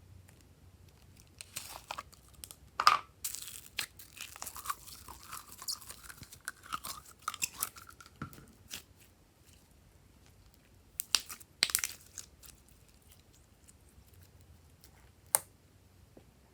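Crafting-table handling noises: a few sharp clicks and snaps, a crinkling, tearing stretch a few seconds in, and more clicks later on.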